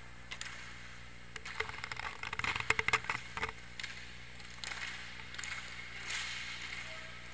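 Inline hockey play: a quick flurry of clicks and clatter from sticks, puck and skates on the rink floor about two seconds in, loudest near the middle, with scattered single clicks and skate noise around it.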